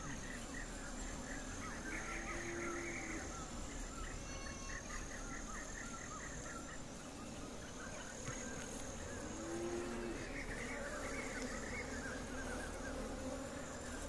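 Honey bees buzzing faintly and steadily around an opened hive box as a comb frame is lifted out, with repeated bird calls in the background.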